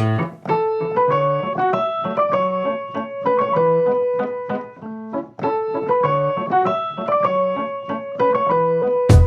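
Background music: a solo piano playing single melody notes, with drums and bass coming back in just before the end.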